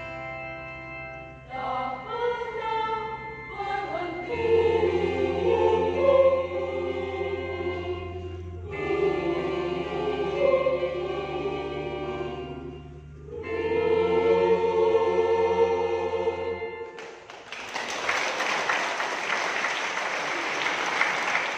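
Church choir singing the closing phrases of a piece over sustained low chords that change every few seconds. The singing ends about 17 seconds in and the audience applauds.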